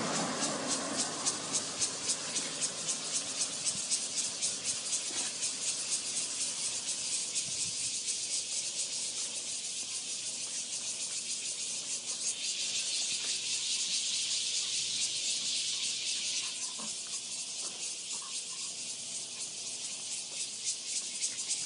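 Insect chorus: a high, evenly pulsing buzz, several pulses a second, with a second, steadier high buzz joining for about four seconds in the middle.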